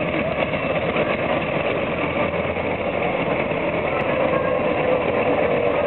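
Fire engine's engine running as the truck drives past, a steady heavy engine sound that dips slightly in pitch in the second half.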